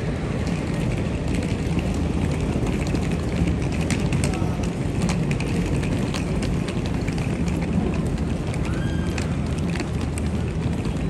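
Busy city street ambience: a steady traffic rumble with passers-by talking, and a few scattered sharp clicks.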